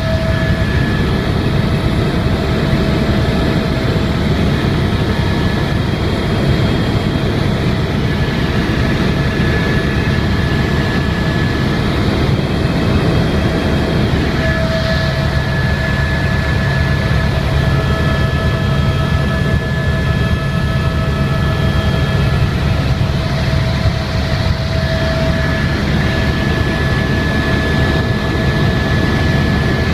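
Helicopter in flight heard from inside the cabin: a loud, steady drone of engine and rotor, with steady high whining tones that come and go over it.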